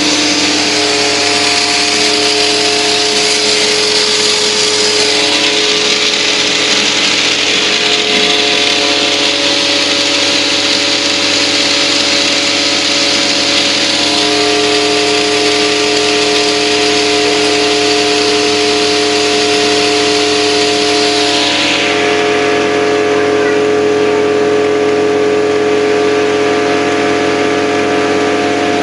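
Self-service coin-operated car wash machine running: a steady motor hum with the hiss of the high-pressure spray over it. The hiss drops away about 21 seconds in while the hum carries on.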